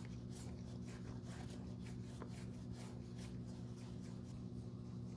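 A grey pad scrubbed back and forth over the leather upper of a Prada loafer: soft scratchy rubbing strokes, about three a second, over a steady low hum.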